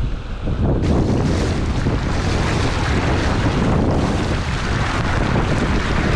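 Strong wind buffeting the microphone over the rush of a fast-flowing, flooded river. About a second in, the noise becomes fuller and brighter and then holds steady.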